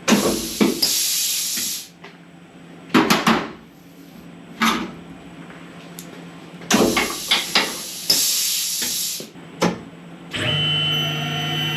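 Two long hisses of compressed air, as from a blow gun clearing the work, with sharp clicks and knocks of metal parts and tooling being handled between them. About ten seconds in, a machine tool's motor starts and runs steadily with a hum and a faint whine, ready for drilling.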